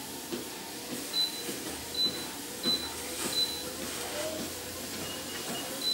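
Under-desk walking pad treadmill running with a steady motor hum under regular footsteps on the moving belt, about one or two a second. Several short high-pitched squeaks stand out as the loudest sounds.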